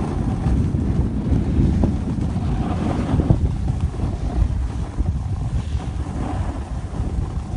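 Wind buffeting the microphone of a camera carried fast down a ski slope: a rough, fluttering low rumble that never lets up.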